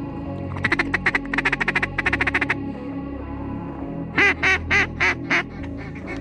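Mallard-type duck quacking: a fast run of short quacks, then five loud, evenly spaced quacks about four seconds in, over background music.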